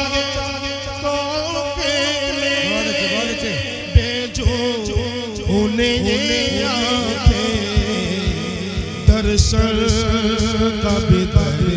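A man singing a naat into a microphone in long, wavering, ornamented held notes, with a few sharp low knocks beneath the voice.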